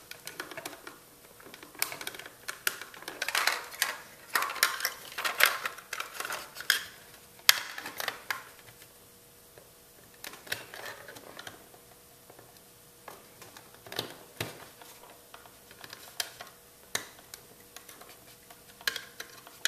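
Small screwdriver clicking and scraping against the plastic housing and retaining tabs of a BMW E36 climate control unit as the circuit board is pried out from the back. The clicks come in a quick run through the first seven seconds and are sparser after that.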